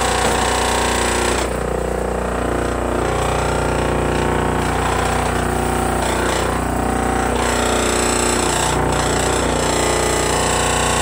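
Homemade 12-inch disc sander running steadily and vibrating, because its disc is not yet straightened to run true.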